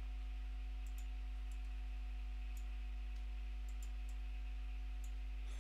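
Steady electrical mains hum from the recording setup, with faint, irregular clicks of a computer mouse being clicked while keyframes are set.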